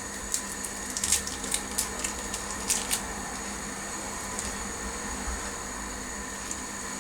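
Light crackling and clicking for about three seconds as a Maggi stock cube is handled and added to a pot of soup, over a steady hiss.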